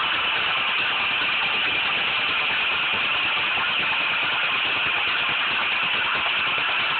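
A steady, even hiss with no beat, tones or breaks, strongest in the upper range.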